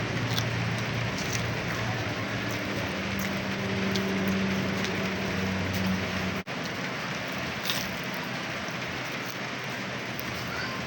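Light rain falling steadily, an even patter with occasional sharper drips. A low steady hum sits under it for the first six seconds or so, and the sound briefly drops out about six and a half seconds in.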